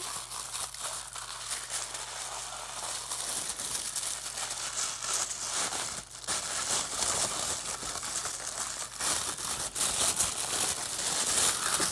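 Packaging crinkling and rustling steadily as hands rummage through a toy's box and pull out a wrapped piece, with a short lull about six seconds in.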